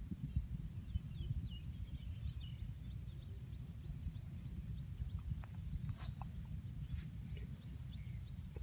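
Faint outdoor ambience: a low, uneven rumble with a few faint high chirps, and a few soft clicks later on.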